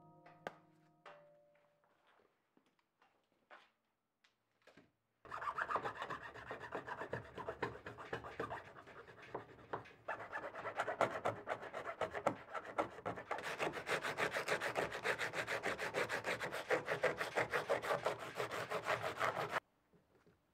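Rapid strokes of a hand scraper on the edge of a boat's hull, lifting off old dried residue. The scraping starts about five seconds in, with a few faint clicks before it, and cuts off abruptly near the end.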